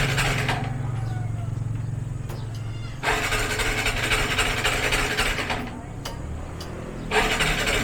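Motorcycle engine being cranked in three separate attempts without catching: a hard-starting engine, which the owner suspects is caused by a dirty carburetor.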